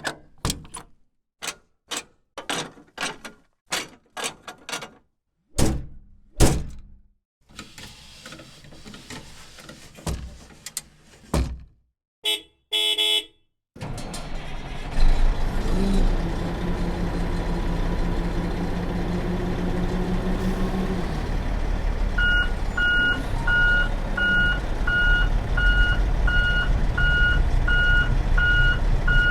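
A series of sharp clicks and thunks from the Oshkosh 8x8 military truck, then a brief pulsing horn sound. The truck's diesel engine then starts and runs steadily, and about eight seconds later its reversing beeper begins, beeping about one and a half times a second.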